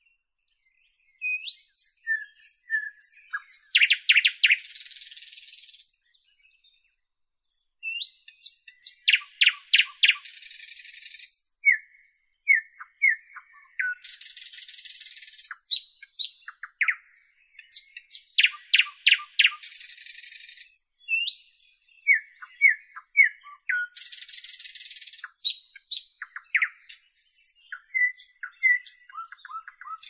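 Nightingale singing: phrases of fast repeated clicking notes, short whistles and quick slurred notes, broken every few seconds by harsh buzzy stretches of a second or two. It is silent for the first second and again briefly about six seconds in.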